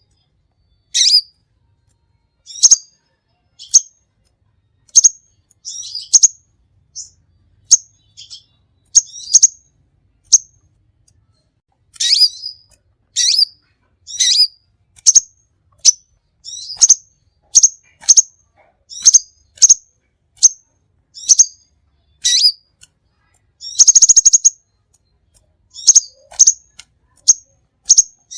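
A songbird chirping in short, sharp, high calls, about one a second, with a longer rattling call a few seconds before the end.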